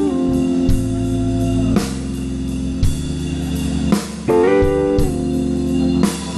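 Live blues band playing between sung lines: an electric guitar fill with bent, gliding notes over bass and drums.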